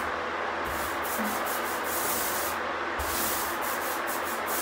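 Paint roller rolled up and down a fiberglass shower wall, spreading thick, sticky Bathworks refinishing paint: a rasping hiss in uneven strokes over a steady hiss.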